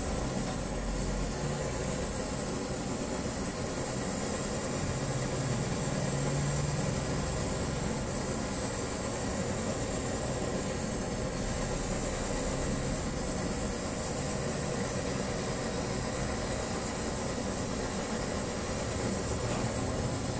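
Kerosene pressure stove (Primus-type babour) burning: the pressurised burner gives a steady, even rushing hiss.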